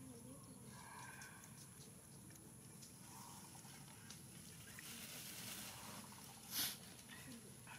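Faint, mostly quiet background with small rustling and handling sounds as a baby macaque eats from a steel bowl, and one short, louder rustle about six and a half seconds in.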